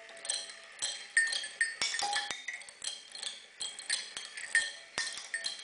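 Small kinetic sound machine made from an old apple peeler and steel parts, driven by a barbecue rotisserie motor: its moving arms knock against hanging metal pieces, giving an irregular run of ringing metallic clinks, a few each second.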